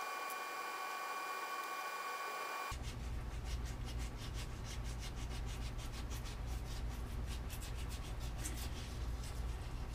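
A steady high whine that stops abruptly about three seconds in. Then irregular scrubbing strokes of crumpled aluminium foil rubbed with water on chrome bicycle parts, scouring off rust, over a low hum.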